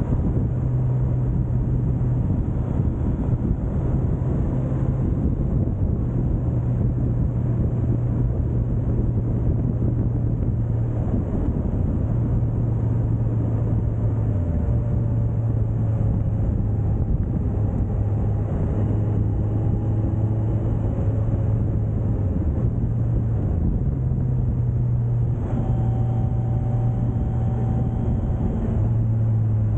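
Suzuki GSX1250FA's inline-four engine running under way at steady road speed, its low note stepping up and down in pitch several times with throttle and gear changes, over a steady rush of wind and road noise.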